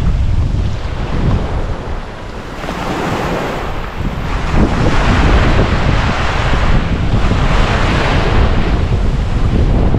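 Ocean waves breaking and washing ashore, with wind rumbling on the microphone. The wash builds about two to three seconds in and stays loud.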